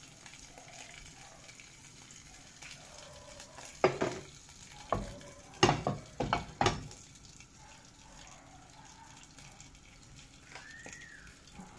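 Cooking oil sizzling faintly as it heats in a nonstick frying pan on a gas stove, with a cluster of sharp clanks and knocks of cookware between about four and seven seconds in.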